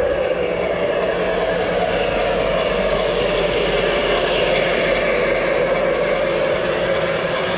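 Lionel O-scale Camelback 4-6-0 model steam locomotive running on three-rail track: a steady rolling rumble of wheels on rail mixed with its onboard steam sound effects.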